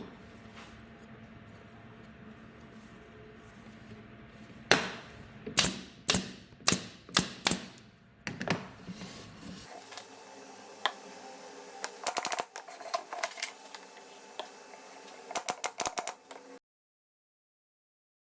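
A run of sharp knocks, about eight over four seconds, then two quick clusters of lighter clattering clicks; the sound cuts off abruptly near the end.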